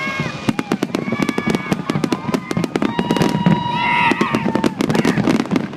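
Aerial fireworks going off in rapid succession: a dense, continuous crackle of many sharp bangs.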